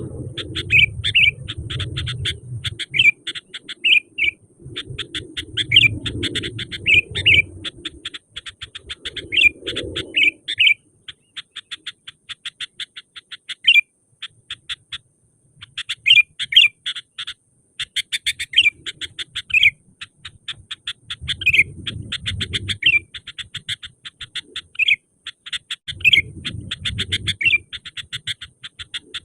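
Sooty-headed bulbul (kutilang) singing vigorously: fast chattering runs of notes mixed with short whistled phrases, the kind of recording played as a lure to draw in wild bulbuls. A low rumble comes and goes underneath.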